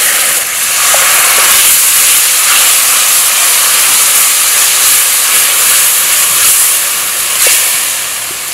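Water poured into a hot pot of oil-fried curry powder, cumin and onions, hissing and sizzling loudly as it boils off in the hot oil, easing off near the end.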